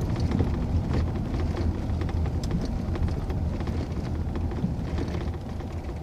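Car driving slowly over a cobbled roadway in a narrow stone tunnel, heard inside the cabin: a steady low tyre rumble with many small rattles and knocks.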